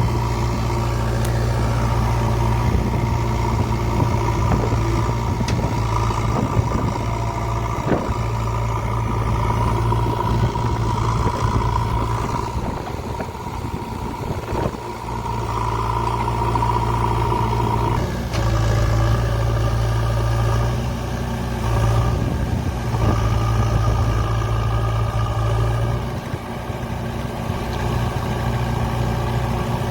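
JCB 3DX backhoe loader's diesel engine running under changing load, rising and falling in level over the seconds, with a thin whine that comes and goes above it.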